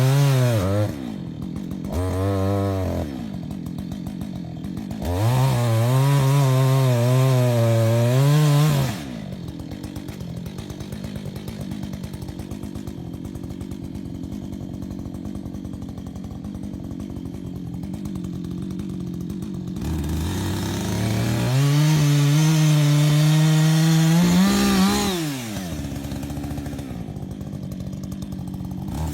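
Chainsaw revved to full throttle in long bursts, with a short blip and a lower steady idle between them. Its pitch wavers while at full throttle.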